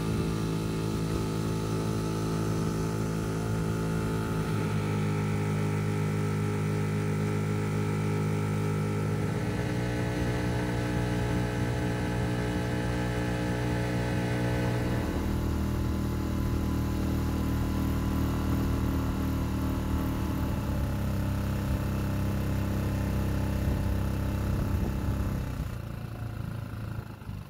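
Small boat's outboard motor running under way, its pitch shifting up and down in steps a few times, then easing off near the end.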